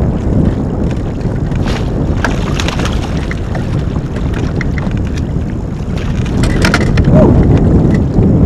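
Wind buffeting the microphone in a loud, steady rumble, with scattered light clicks and rattles of fishing tackle while a fish is reeled in and netted.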